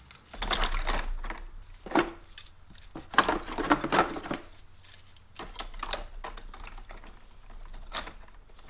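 Steel snap ring pliers clinking and clattering against one another as they are handled and set down, in irregular bursts of metallic clicks.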